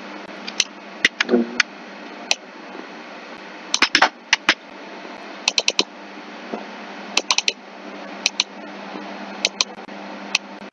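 Sharp clicks of a computer keyboard and mouse, some single and some in quick runs of three or four, over a steady low hum.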